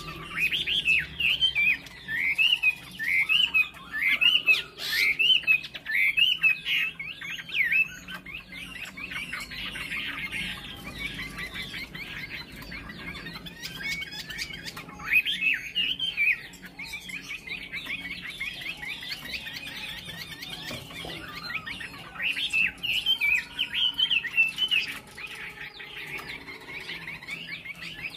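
Chinese hwamei (Garrulax canorus) singing: rapid, varied sweeping notes in loud phrases with quieter stretches between.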